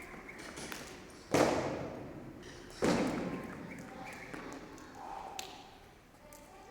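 Two heavy thumps on a gym floor about a second and a half apart, each ringing on briefly in the hall, as gym equipment such as a loaded barbell is dropped.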